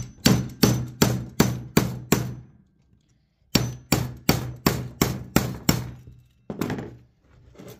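Hammer striking an old ratchet used as a punch against a transformer's steel core, tapping the windings loose: a run of about seven sharp, ringing metal strikes at about three a second, a pause of over a second, a second run of about seven, then two or three more near the end.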